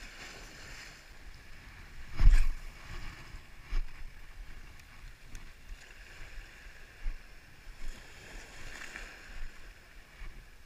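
Small waves washing and lapping over a pebbly, rocky shoreline. A loud thump comes about two seconds in, with a few softer knocks after it.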